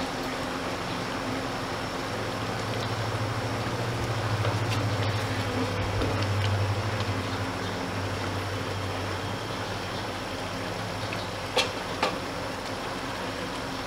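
Chicken and potato curry cooking in a pot on a gas stove, a steady sizzling hiss, stirred with a wooden spatula. A low hum swells and fades in the middle, and two sharp knocks come near the end.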